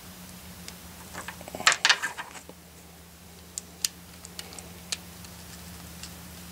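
Small parts of a scope-mounted light and laser kit being handled and fitted by hand: a quick cluster of clicks and rattles about two seconds in, then scattered single sharp ticks, over a steady low hum.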